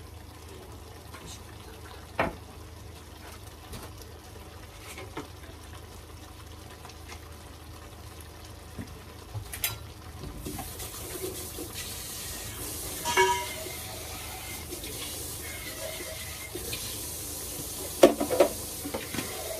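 Kitchen work sounds: a few knocks of utensils, then about halfway through a tap is turned on and water runs steadily into the sink, with dishes or utensils clinking and knocking.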